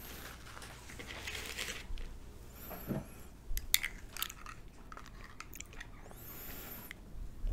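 Close-miked food handling: crusty Turkish flatbread being torn and handled, then a glass jar of ajvar being opened and a metal knife scraping and clicking against the glass as it scoops out the red pepper spread. There are a few sharp clicks about halfway through, and two short scrapes.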